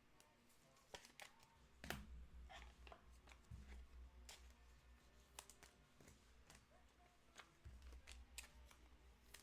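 Faint clicks and rustles of trading cards being handled, with a low hum underneath from about two seconds in.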